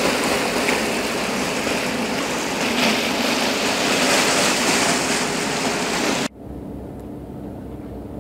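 Rush of water and wind alongside a moving boat, loud and even. It cuts off abruptly about six seconds in, leaving a quieter steady low drone of the boat's engine.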